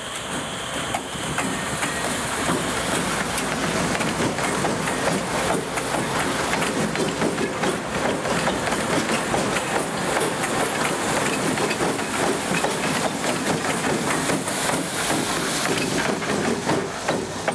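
Three GE diesel-electric locomotives, two ES40DC and a C40-9W, running light without cars as they pass close by. Their engines rumble and the wheels clack over the rails, with many sharp clicks throughout.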